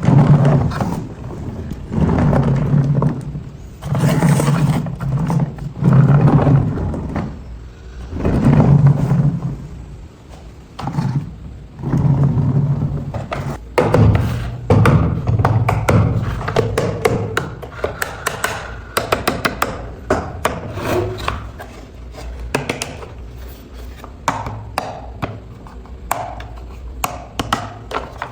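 A small electric motor, likely the RC dumper truck's gear motor, runs in short bursts of about a second, roughly every two seconds, with a steady low hum. Later it gives way to a quick string of light plastic clicks and taps.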